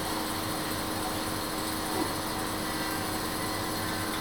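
Tabletop compressor nebulizer running with a steady hum, its air pump turning liquid medicine into mist for a face mask.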